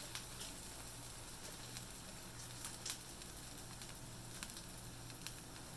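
Tuna steak sizzling in a hot pan, with scattered crackles and pops over a steady hiss. A low steady hum sits underneath.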